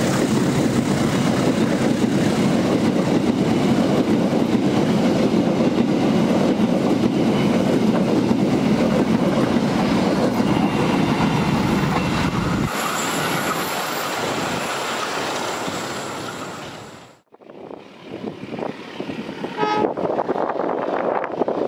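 Passenger train coaches of the KAI Sawunggalih passing close by: a steady heavy rumble and clatter of wheels on the rails. About two-thirds through the sound thins out, fades away almost to nothing, and then a quieter outdoor background comes back.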